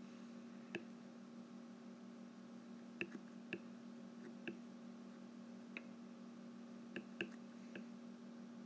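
Stylus tip tapping and clicking on a tablet's glass screen during handwriting: about ten short, sharp ticks at irregular intervals, over a faint steady low hum.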